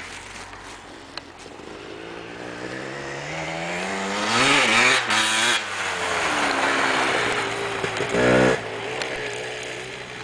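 Enduro dirt bike engine riding past on a snowy track. Its pitch rises as it comes closer and accelerates, peaks loudest around the middle, then drops. A short, hard rev comes about eight seconds in.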